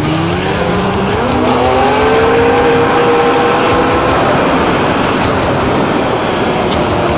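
Snowmobile engine accelerating, its pitch rising over the first two seconds or so and then holding steady, over a loud rushing noise of track and wind.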